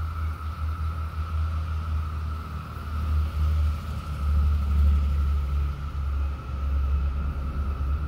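Wind buffeting the microphone as an uneven low rumble, loudest about four to five seconds in, over a steady, unbroken drone of cicadas.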